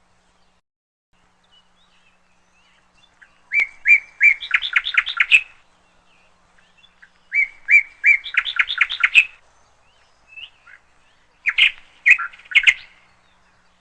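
Bird chirping phrases repeated three times, about four seconds apart; each phrase is a few short chirps followed by a quick trill of notes.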